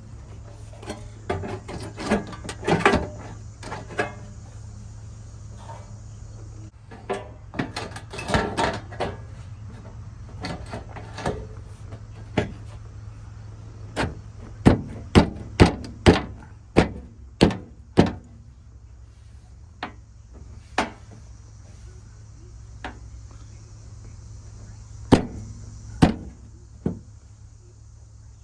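Sharp knocks and taps on truck sheet metal as a replacement rust-repair panel is worked into place on an old GMC, with a quick run of loud strikes about two a second in the middle and a couple more near the end, over a steady low hum.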